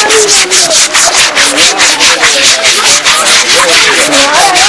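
A mahout scrubbing a wet elephant's hide with quick, rhythmic scrub strokes, about five a second.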